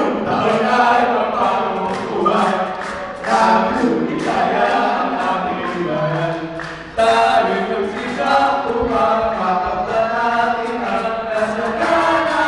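A group of young men singing together in harmony into microphones, with a loud new phrase starting about three seconds in and again about seven seconds in.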